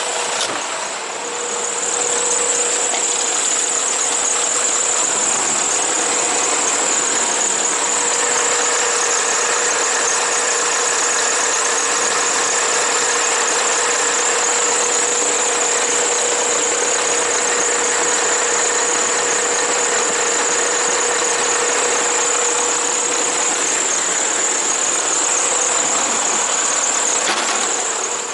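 Renault Premium 280 DXI truck running steadily at idle, with a steady high whine over the engine noise and a constant mid-pitched hum that starts about a second in.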